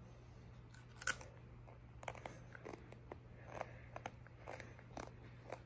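A crisp chip being bitten and chewed: one sharp crunch about a second in, then a run of faint, uneven crunches as it is chewed.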